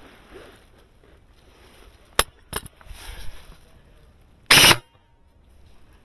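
Two sharp cracks of airsoft gunfire about half a second apart, then a much louder short burst of noise about two seconds later.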